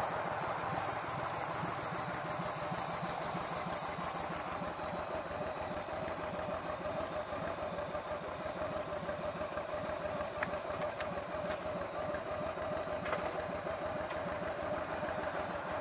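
Yamaha V Star 1300's V-twin engine running steadily.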